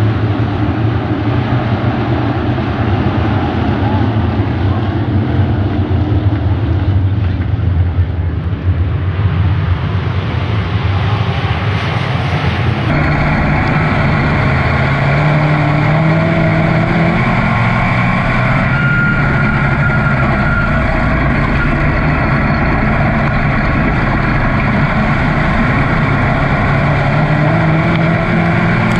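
A field of dirt-track race cars running on the track, their engines blending into a steady drone. About 13 s in it cuts to inside a dirt race car's cockpit: the car's V8 engine running at low speed, its note rising a couple of times as the throttle is worked.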